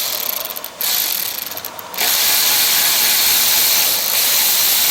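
Power tool running in two short bursts, then steadily, while the mower's ignition coil is taken back out.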